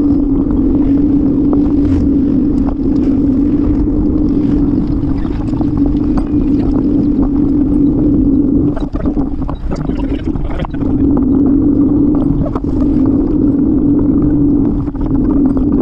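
Wind and road noise on the camera microphone of a moving bicycle: a steady low drone over rumble, thinning out briefly about halfway through.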